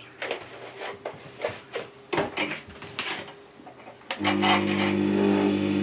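Scattered knocks and handling noises as a plastic bottle is used to top up the water trough of a Record Power WG200 wet stone sharpener. About four seconds in, the sharpener's motor is switched on and runs with a steady hum as the stone turns.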